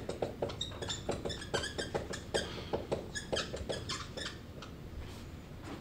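Dry-erase marker writing on a whiteboard: a quick run of short squeaks and taps that stops about four seconds in.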